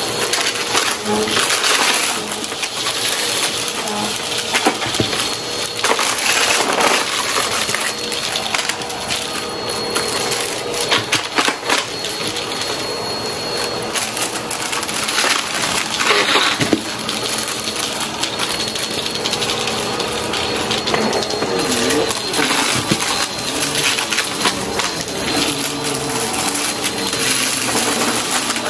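Bagless upright vacuum cleaner running with a steady motor whine, picking up small bits of debris off rugs with a continual crackle and rattle of pieces sucked up into it.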